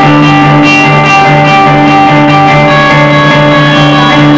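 Live instrumental rock band playing loud: electric guitar and bass guitar holding sustained, ringing notes over a drum kit, with the chords shifting every half second or so.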